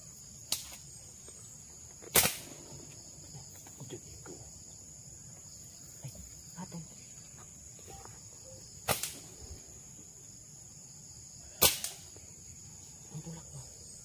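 A slingshot being fired: four sharp snaps a few seconds apart. Underneath runs a steady high-pitched insect chorus.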